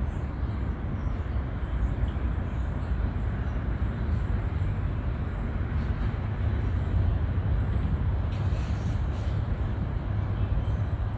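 Wind blowing steadily, with low noise from gusts on the microphone that rises and falls slightly.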